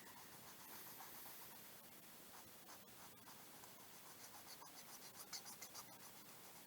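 Near silence: faint room tone with a few soft ticks near the end.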